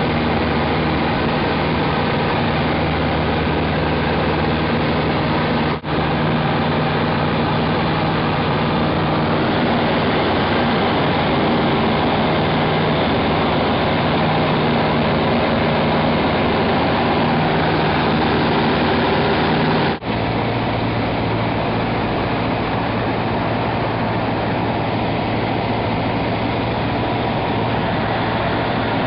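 Single-engine light aircraft's piston engine and propeller drone, heard inside the cockpit in flight, with two brief breaks. After the second break, about twenty seconds in, the tone settles lower, with power reduced for the approach to the runway.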